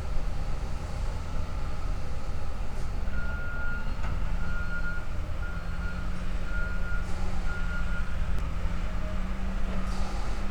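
Steady low rumble of heavy sawmill machinery. In the middle comes a run of about five evenly spaced short beeps of one pitch, like a warning or reversing alarm, with a few faint knocks.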